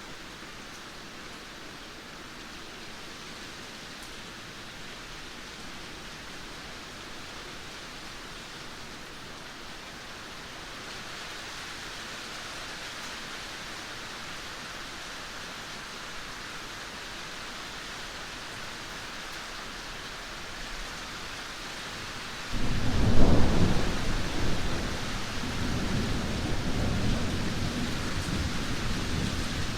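Heavy rain falling as a steady hiss. About twenty-two seconds in, a sudden clap of thunder breaks in, loudest at its start, and rolls on as a long low rumble under the rain.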